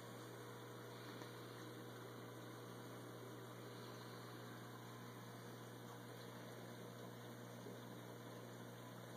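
Faint steady low electrical hum with a background hiss from running reef aquarium equipment, with no change throughout.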